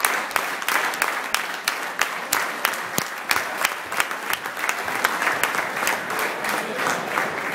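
Audience applauding, with many sharp individual hand claps standing out.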